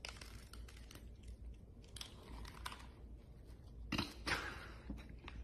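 Cats crunching dry kibble: irregular crisp crunches, with two louder ones about four seconds in.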